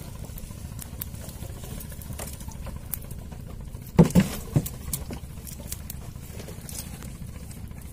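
Steady low rumble of a fishing boat's engine running, under light scattered tapping and a louder slap about four seconds in from a freshly caught live hilsa flapping on the boat's wooden deck planks.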